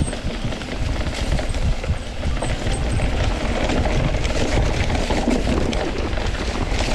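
Mountain bike riding down a rough, leaf-covered trail: steady tyre noise with many small knocks and rattles.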